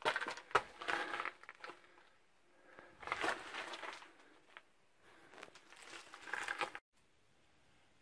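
Footsteps scuffing and crunching on rock and grit, with rustling, as someone clambers through a cave, in three spells with quiet pauses between. The sound stops abruptly about seven seconds in.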